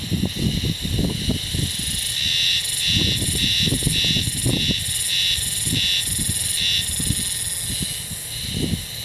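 A male haruzemi (spring cicada, Terpnosia vacua) singing: a high buzzing drone that breaks into a pulsed call of about two phrases a second for several seconds, then settles back into a steady buzz. An irregular low rumble runs underneath.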